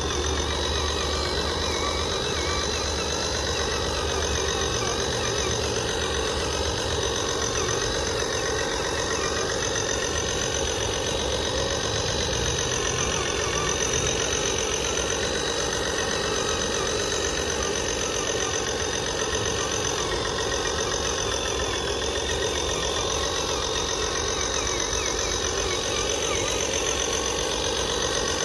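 Radio-controlled model truck running steadily: an engine-like idling sound with constant high-pitched whines over it, unchanging throughout.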